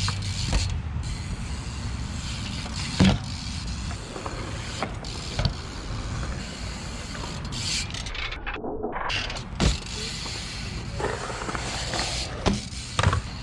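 BMX bike giving a steady mechanical rattle and creak, with a few sharp knocks; the loudest come about three seconds in and near ten seconds.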